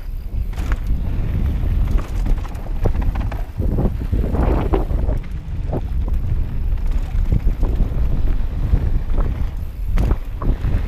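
Mountain bike descending a gravel trail at speed: wind buffeting the camera microphone with a steady low rumble, over a run of clicks and rattles from the tyres on loose stones and the bike's parts shaking.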